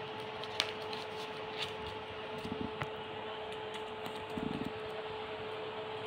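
Steady room hum and hiss carrying one constant tone, with a few faint clicks and soft knocks from a young rose-ringed parakeet's feet and beak on a rolled paper calendar.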